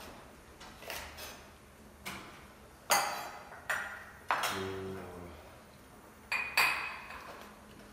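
Chef's knife chopping through the woody ends of white asparagus onto a wooden cutting board: a series of sharp knocks, some with a short metallic ring.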